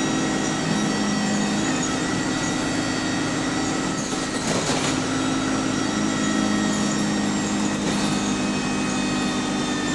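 Bus heard from on board while driving: a steady engine drone with the whine of its Voith automatic gearbox, the pitch of the tones shifting a couple of times, with a brief rattle about halfway through.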